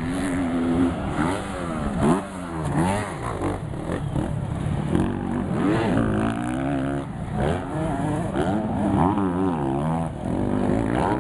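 Several motocross bikes' engines revving up and dropping back again and again, their rising and falling pitches overlapping.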